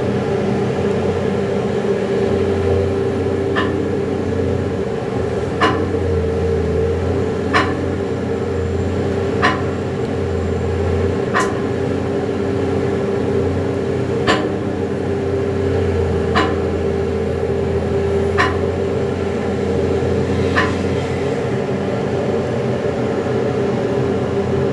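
Liebherr R 9250 hydraulic mining excavator's diesel engine running steadily under load, with a steady hum and a low drone that swells and eases. Sharp short clicks come about every two seconds through most of it.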